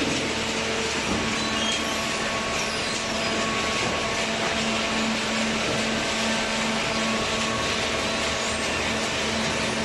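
Hydraulic baler's electric motor and pump running with a steady hum and even machine noise.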